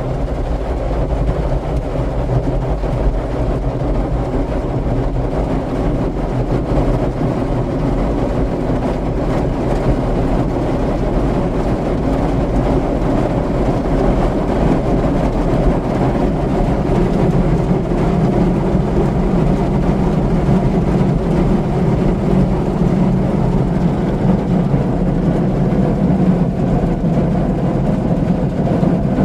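Broadway in-bay automatic car polisher running, its motors and buffing brushes working over the car in a steady mechanical drone. A deeper hum grows louder a bit over halfway through.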